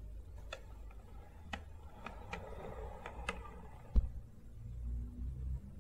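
Quiet handling noise: scattered light clicks, and a single dull thump about four seconds in, over a low room rumble.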